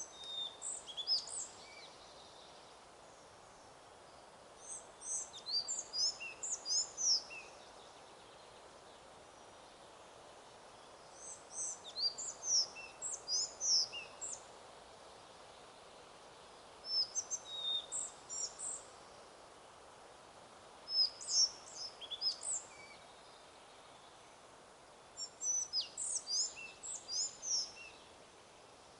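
A songbird singing repeated short phrases of rapid, high chirping notes, six phrases each one to three seconds long with a few seconds' pause between them. A steady hiss of wind in the trees runs underneath.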